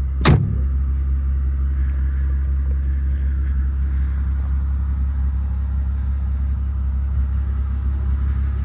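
Mercedes-AMG G65's rear swing-out door shut with one sharp slam about a quarter second in, over the steady idle of its twin-turbo V12.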